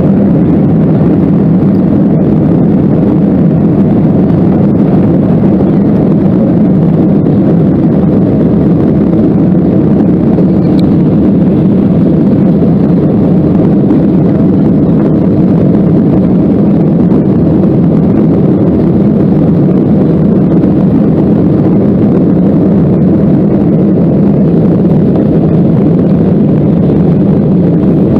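Cabin noise of a Boeing 737-800's turbofan engines at take-off thrust, a loud steady low rumble as the jet rolls down the runway, lifts off and climbs out.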